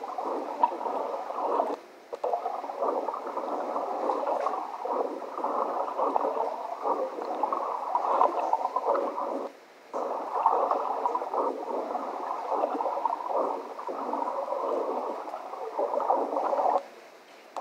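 Underwater camera audio of churning, gurgling water, played back through laptop speakers so it sounds thin and boxy. It cuts out briefly about two seconds in, again near the middle, and near the end.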